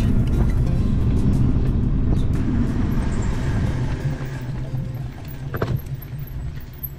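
Wind rushing over an action camera's microphone on a fast downhill bicycle ride, a loud low rumble that eases off over the last few seconds as the bike slows.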